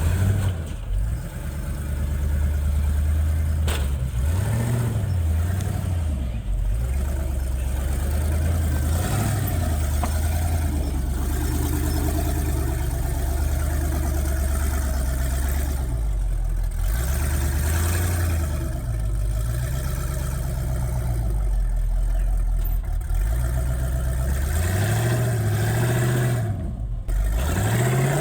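Side-by-side (UTV) engine working under load, revving up and falling back again and again in throttle blips, as on a rock-crawling climb.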